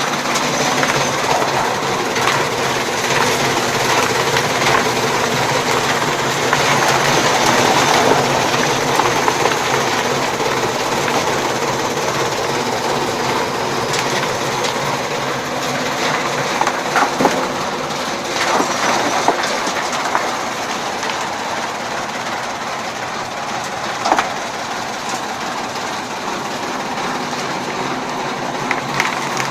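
Chaff cutter running and chopping fodder: a steady mechanical hum and dense clatter from the cutting blades, with a few sharp cracks in the second half.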